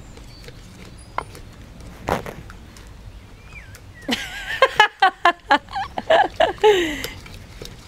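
Wooden pestle pounding a wet paste in a clay mortar: irregular dull knocks, one louder about two seconds in. From about four seconds in a woman laughs in a run of short bursts, the loudest sound here.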